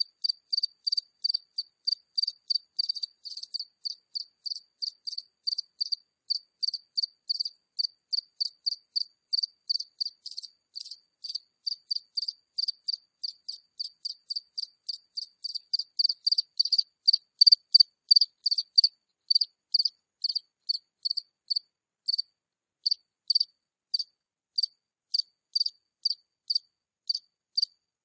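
A single Acheta cricket chirping close by: a steady run of short, high chirps, about three a second, that slow and space out unevenly over the last third.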